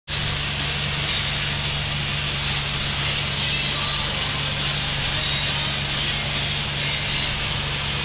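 Massey Ferguson 4235 tractor running steadily under load, driving a Taarup forage harvester, with the rush of chopped grass being blown through the harvester spout into the trailer. A loud, even engine drone with a constant hiss over it.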